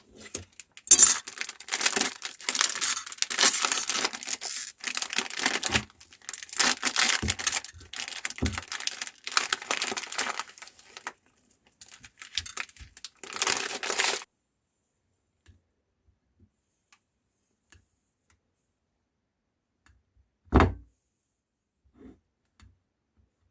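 Plastic packaging crinkling and tearing in a long stretch of irregular rustling, then it stops, and a single thump sounds near the end.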